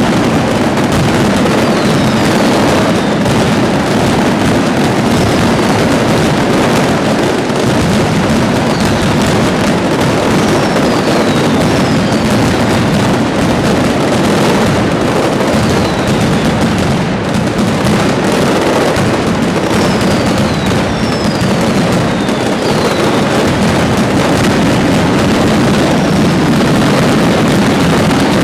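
Mascletà: an unbroken, dense barrage of firecracker and masclet (salute) explosions. Short falling whistles from whistling fireworks cut through it again and again.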